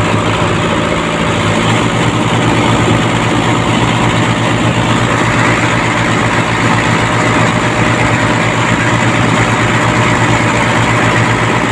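A boat-mounted Mitsubishi Colt Diesel truck engine, a four-cylinder diesel, running steadily at idle with an even, rapid low pulse.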